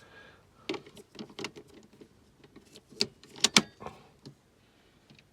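A series of small sharp clicks and knocks from handling a digital radio and plugging in its 5 volt power brick lead, with two louder clicks about three and a half seconds in.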